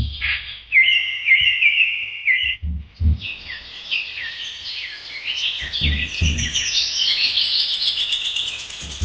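Small birds chirping, with quick repeated notes at first and then several birds calling over one another. A few dull low thumps come in pairs, about three seconds in and again about six seconds in.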